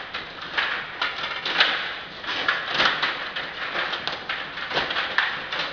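Stiga Play Off table hockey game in play: control rods sliding and twisting in the plastic table and the figures striking the puck, making quick, irregular clicks, knocks and rattles.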